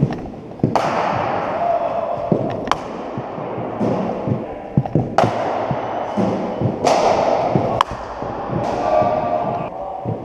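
Several sharp knocks of cricket balls striking bats and bouncing in indoor cricket nets, spread irregularly, each echoing around a large sports hall.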